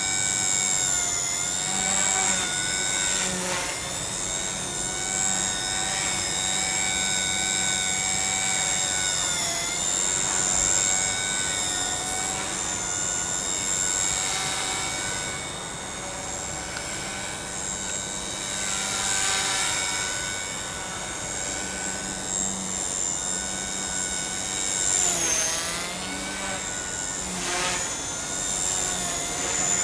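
Align T-Rex 150 DFC micro RC helicopter flying 3D aerobatics: the high-pitched whine of its electric motor and spinning rotor, rising and falling in pitch as the throttle and blade pitch change. There are two quick sweeps in pitch near the end.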